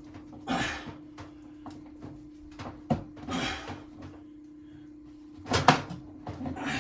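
Knocking and scraping against the wooden cabinet as the microwave's power cord is pulled up through it, with a loud double knock near the end.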